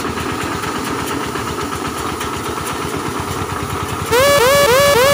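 Three-wheeled bullet mini tractor's engine running steadily with a fast chug, together with its towed air-blast orchard sprayer blowing mist, a steady whine over the engine. About four seconds in, music of quickly repeating rising electronic chirps starts over it.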